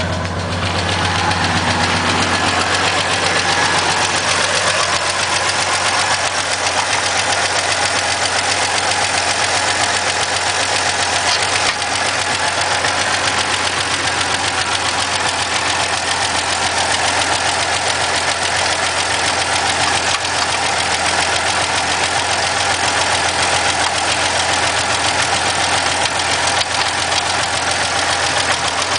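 Engine running steadily at idle after a hard start, having caught on starter fluid.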